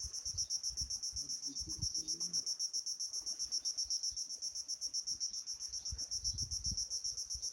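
Insects trilling steadily, a high rapid pulsing of about ten pulses a second that never breaks, with irregular low rumbles and thumps beneath.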